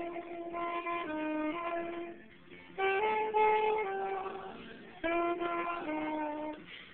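Carolers singing a slow carol melody in unison: held, steady notes in short phrases, with brief breaths between phrases.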